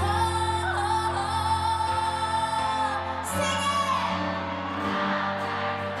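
Live pop music: a woman sings over a band, holding one long wavering note for about three seconds, then a second phrase begins.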